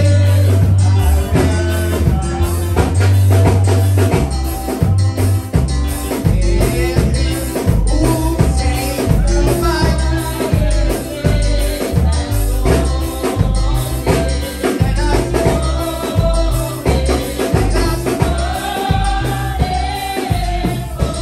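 Upbeat gospel music with singing over a steady percussion beat.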